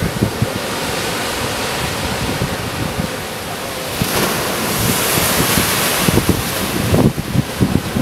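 Ocean surf crashing and washing against a lava-rock shoreline, with wind buffeting the microphone. A louder hissing rush of spray builds about four seconds in and eases off around seven seconds.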